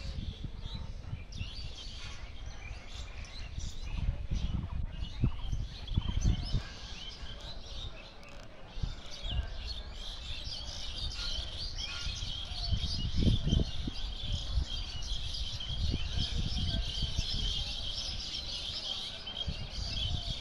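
Many small birds chirping and calling, their chatter growing denser over the last few seconds. Uneven low rumbling bursts sit underneath and are loudest about 4, 6 and 13 seconds in.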